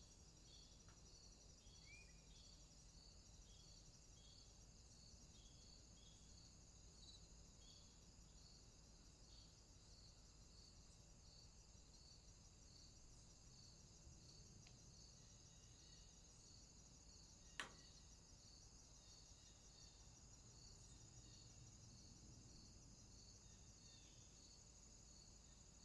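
Faint crickets chirping in a steady, even rhythm of about two chirps a second over a continuous high trill. A single sharp click about two-thirds of the way in.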